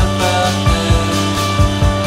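A rock song playing, with drum hits, cymbals and held chords over a bass line.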